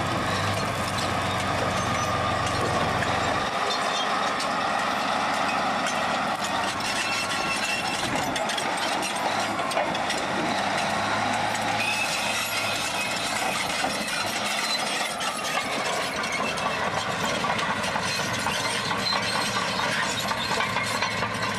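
Caterpillar D10 crawler bulldozer's diesel engine running steadily as the machine moves, with the clanking of its steel tracks.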